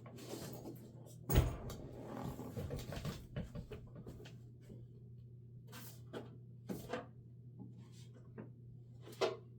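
Objects being handled and rummaged through on a desk: a sharp knock about a second and a half in, scattered light clicks and taps, and another knock near the end, over a steady low hum.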